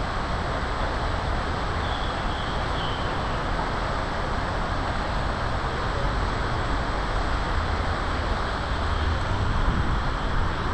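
Steady city street traffic noise, a continuous low rumble of passing road vehicles.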